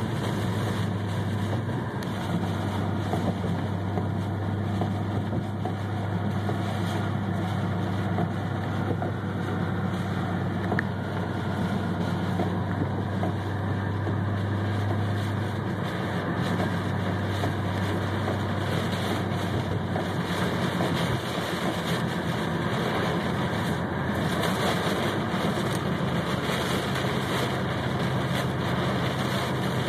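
Inside a car driving through a torrential downpour: a low, steady engine drone under the constant hiss of heavy rain on the car and tyres on the flooded road. The engine drone fades about halfway through and comes back near the end.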